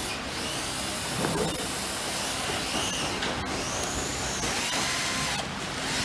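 Cordless electric screwdriver run in a few short bursts in the second half, its motor whine rising and falling in pitch with each press of the trigger, while driving screws into the carbon rear shock tower of an RC truck. A brief clatter comes about a second in, and a steady hiss lies under it all.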